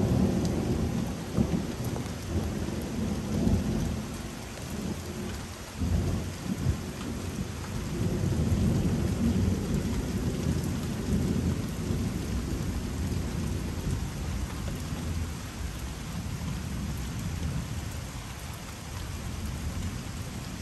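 Thunder rumbling over steady rain. The low rumble swells right at the start, again about six seconds in and from about eight to twelve seconds, then slowly eases.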